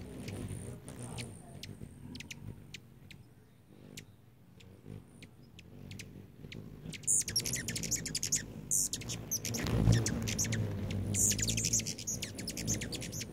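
Hummingbirds at a feeder calling: scattered sharp, high chip notes, turning into busier squeaky high chatter in the second half. A low thump stands out about three quarters of the way in.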